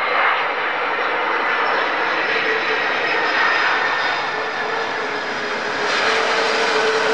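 Boeing 767-300ER's twin GE CF6 jet engines during the landing roll just after touchdown: a loud, steady jet roar with a steady whine running through it, swelling slightly near the end.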